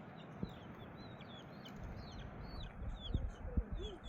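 Small birds chirping in short, quick downward-falling notes, repeated again and again over the steady rush of a river. A few knocks and low calls come in near the end.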